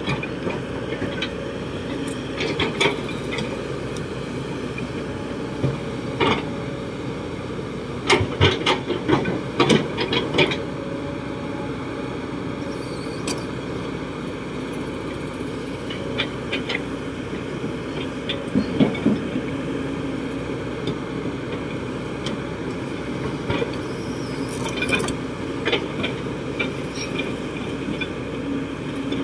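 Kobelco SK200-8 excavator's diesel engine running steadily under hydraulic load while the bucket digs into dirt, with sharp clanks and knocks from the bucket on soil and stones, a cluster of them about a third of the way in and a few more later.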